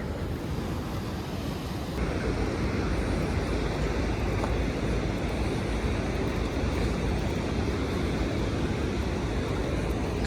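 Steady wash of sea surf and wind buffeting the microphone; the noise steps up louder about two seconds in and then holds steady.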